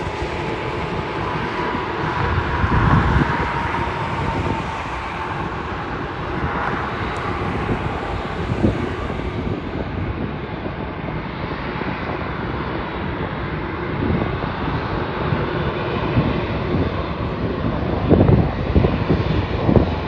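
Boeing 787-8 airliner taxiing, its twin turbofan engines running at low taxi power as a steady hum, with a faint high whine in the first few seconds. Wind gusts buffet the microphone now and then.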